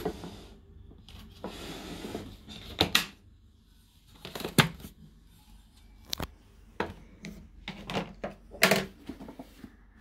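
Sharp plastic clicks and knocks, about a dozen spread irregularly, from handling a Numatic NV200 vacuum cleaner with its motor off: the head's clips are unlatched and the head and cloth filter are lifted off the tub. A scraping rustle lasts about a second near the start.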